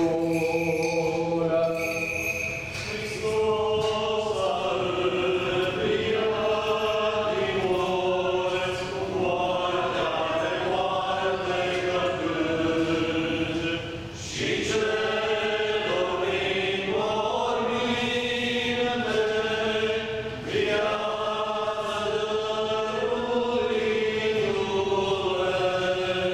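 Orthodox Easter chant sung by a group of voices together, in long sustained phrases with short pauses for breath between them.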